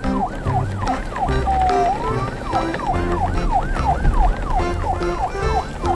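Electronic siren sound, a fast yelp rising and falling about four times a second, with one slower fall-and-rise about two seconds in. It plays over background music with a stepping bass line.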